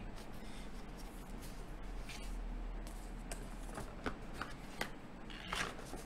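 Hands handling a cardboard keyboard box and its black foam sheet: light rustling, rubbing and small taps of cardboard and foam, with a louder rustle near the end.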